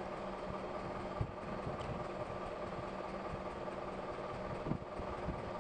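Steady mechanical drone of an engine running at idle, with two soft knocks, about a second in and near the end.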